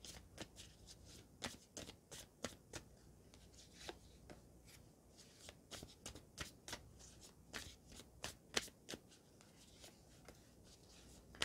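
Tarot deck being shuffled by hand: a quiet run of short, irregular clicks and flicks of card against card.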